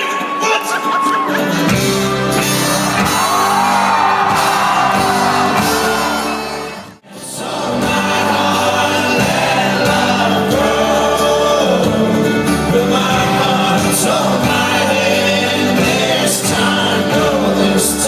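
Live band music with singing, heard in a large hall. The sound drops out for an instant about seven seconds in, then carries on.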